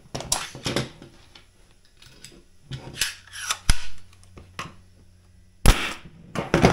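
Spotnails 15-gauge composite finish nailer being handled with a series of clicks and knocks, then firing once with a sharp, loud shot a little before the end.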